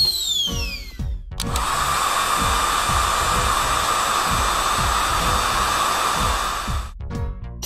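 Cartoon dryer sound effect: a steady, hair-dryer-like blowing hum that starts about a second and a half in and cuts off sharply near the end. It is preceded by a falling whistle, and background music with a steady beat runs under it.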